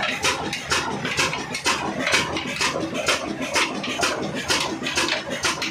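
A 35 hp desi Ruston-type diesel engine running steadily under the belt load of a flour mill, with an even, slow beat of about two firing strokes a second.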